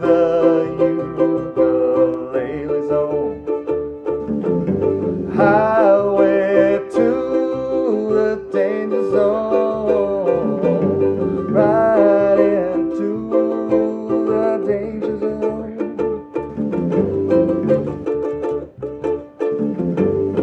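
Ukulele strumming chords over a bass ukulele line, with a wavering, gliding melody line laid over the chords twice; the passage ends on a final strum.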